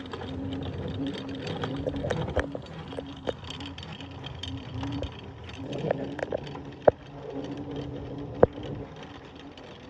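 Autonomous athletic-field line-marking robot running on grass while spraying paint: a low machine hum that cuts in and out in short pulses over a steady hiss, with three sharp clicks a few seconds apart.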